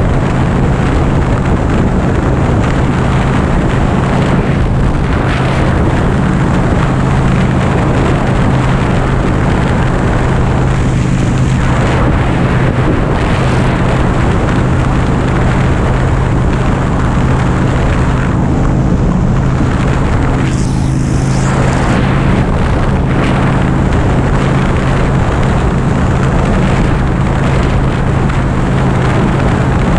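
Harley-Davidson FXDB's V-twin engine running steadily at highway cruising speed, with wind rushing over the microphone. The hiss swells briefly twice, about a third and two-thirds of the way through.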